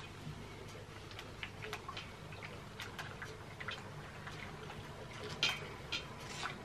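Close-up eating sounds: irregular small wet clicks and smacks of chewing, with a couple of louder ones near the end, over a faint steady low hum.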